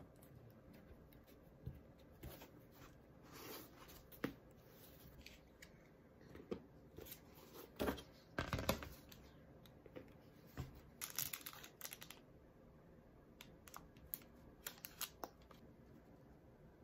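Quiet hand-work sounds of bookbinding: scattered taps and clicks as the book is handled and plastic spring clamps are set on it, the loudest cluster of clicks about halfway through, followed by a brief rustle.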